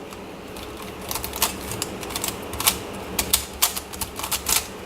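Plastic twisty puzzle (MoYu Crazy YiLeng) being turned by hand: a quick, irregular run of sharp clicks as its layers snap round, thicker and louder in the second half.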